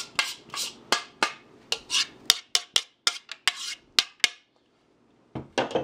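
Metal spoon scraping and tapping against a bowl as a tomato and olive topping is scooped out over fish in a foil baking pan: a quick run of sharp clicks and scrapes, a short pause, then a few more taps near the end.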